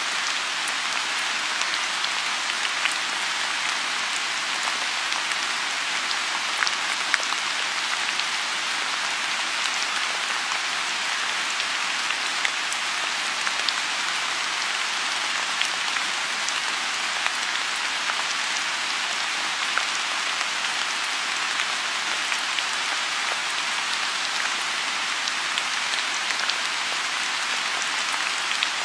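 Steady rain falling on a lotus pond: a dense, even patter with many single drops ticking through it.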